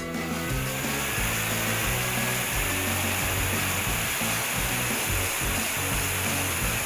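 Cartoon sound effect of a fire truck's water cannon spraying a jet of water, a steady hiss, over background music.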